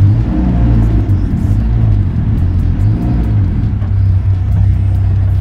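DF Goblin kit car's engine running loudly, its low note shifting unevenly.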